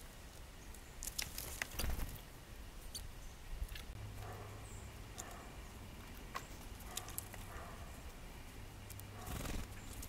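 Scattered sharp clicks, taps and scrabbling of a red squirrel and birds moving about and feeding at a seed pile, densest about a second in and again near the end.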